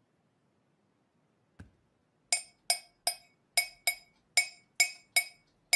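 A soft knock, then a ceramic mug tapped over and over: nine sharp, ringing taps of the same pitch, a little over two a second.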